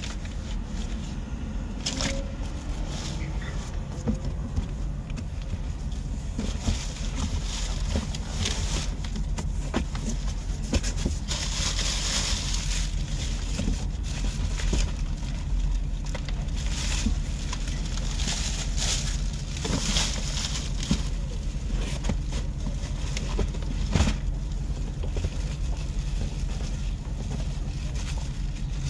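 A plastic bag crinkling and rustling in bursts as water bottles and food are packed into it by hand, with a couple of sharp clicks, over the steady low rumble of an idling vehicle engine.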